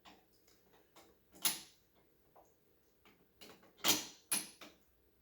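Small diecast metal model parts clicking and knocking as they are handled and set in place: a few sharp separate clicks, the loudest two in quick succession about four seconds in.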